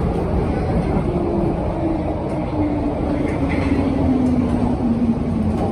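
London Underground 1972 Stock train running into a station, a steady loud rumble under a whine that falls slowly in pitch as the train slows.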